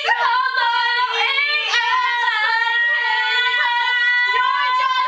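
Girls singing in high voices, drawing out long held notes that waver and slide between pitches.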